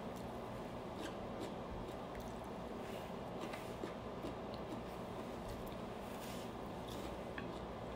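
Quiet room with a steady low hum, over which come faint, scattered clicks and soft squishy mouth sounds of someone chewing stir-fried rice noodles.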